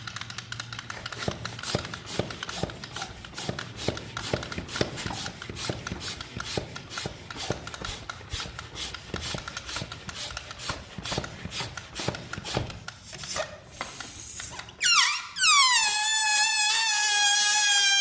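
Rubber balloon being handled, with rapid rubbing squeaks and clicks. About 15 s in, air starts escaping through the stretched neck: a loud, wavering squeal that drops in pitch at first and then holds roughly steady.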